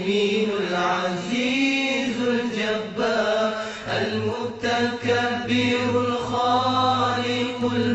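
Islamic devotional chanting (dhikr) in Arabic: a voice sings long, drawn-out phrases. A steady low hum joins beneath about halfway through.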